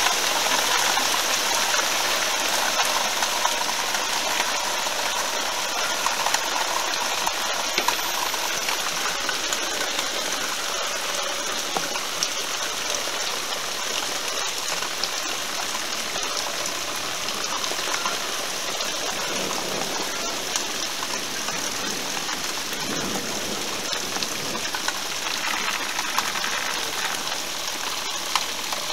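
Heavy thunderstorm rain, really coming down: a steady hiss of dense, fine drops.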